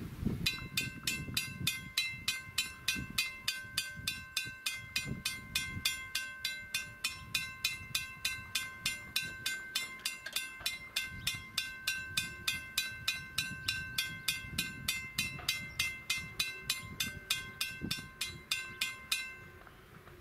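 A railroad bell ringing rapidly and evenly, about four strikes a second, stopping abruptly near the end. Under it is the low, uneven rumble of the approaching steam locomotive working hard.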